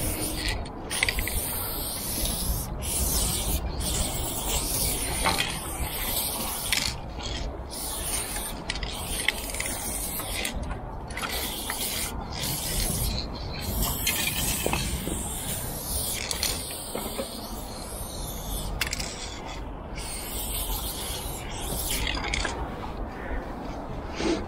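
Aerosol spray paint can hissing in repeated bursts, starting and stopping many times as lines are sprayed onto the metal side of a train wagon, over a steady low rumble.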